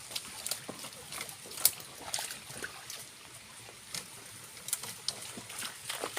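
Water trickling and splashing at a small waterfall, with irregular sharp splashes, the loudest about one and a half seconds in.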